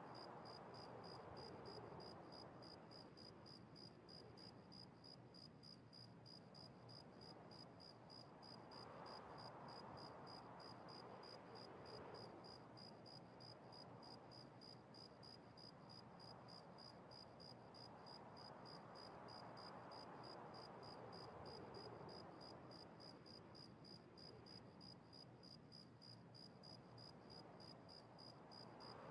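Near silence: faint room hiss through a security camera's microphone, with a thin high-pitched ticking repeating evenly about two to three times a second and soft swells of noise every several seconds.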